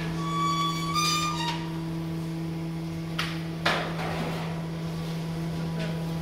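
A steady low machine hum. About half a second in comes a brief high two-note squeal. Around the middle there are two sharp metallic knocks as the wire rack under the roasted whole lamb is handled.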